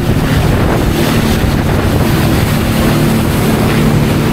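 Jet ski engine running at speed, a steady low drone, under heavy wind buffeting on the microphone and rushing water spray.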